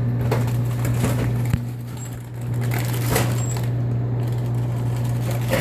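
A steady low hum with a few brief clicks and handling noises, one sharp click about one and a half seconds in.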